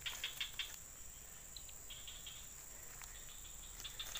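Insects chirping: a steady high buzz, with three short runs of rapid chirps.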